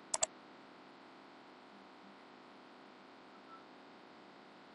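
Two quick computer mouse clicks right at the start, followed by a faint steady hum and hiss.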